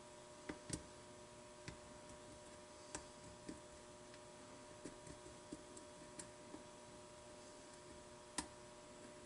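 Faint, irregular small clicks of a pick and tension wrench working the pin tumblers of an old mortise lock cylinder, about ten scattered ticks over a faint steady hum.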